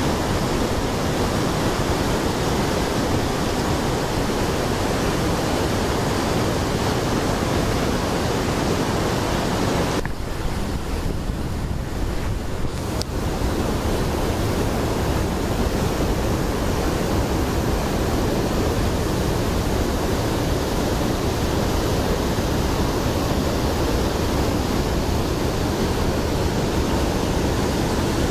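Steady rush of a fast mountain river's white-water rapids tumbling over boulders. It turns briefly duller for about three seconds near the middle.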